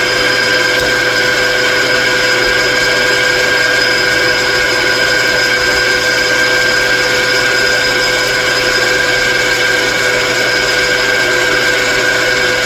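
Metalworking machine tool running at a steady speed while a cut is fed to depth. It holds an even whine over a rough cutting hiss throughout.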